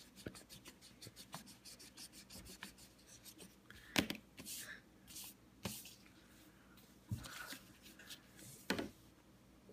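Pencil writing on a paper worksheet: quick scratchy strokes over the first three seconds, then a few sharper taps and short rubbing sounds of pencil and hand on the paper.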